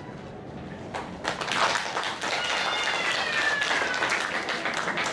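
Audience applause that starts about a second in, with a high falling call heard over the clapping partway through.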